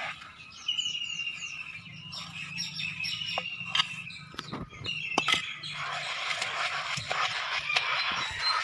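Birds chirping, with repeated short whistled notes, and a few sharp knocks near the middle.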